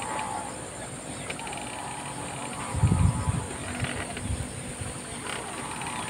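Rural outdoor ambience: a steady high-pitched drone of insects, with a brief low rumble about halfway through.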